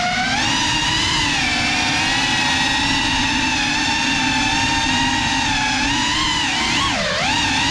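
Geprc Cinelog 35 cinewhoop quadcopter on 6S, its ducted brushless motors whining at a mostly steady pitch, with a quick dip and rise in pitch at the start and a sharp drop and climb about seven seconds in as the throttle is eased and pushed again.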